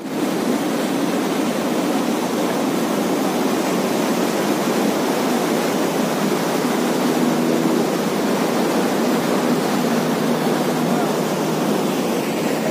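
Mountain river rushing over boulders in a steady, loud roar of white water.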